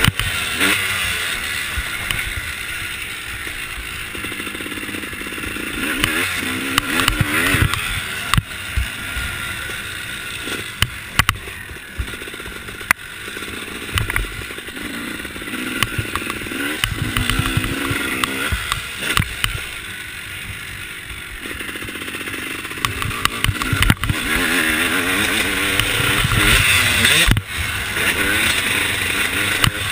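Dirt bike engine revving up and dropping off again and again as it is ridden around a motocross track, heard close from an onboard camera, with wind rushing over the microphone and scattered knocks.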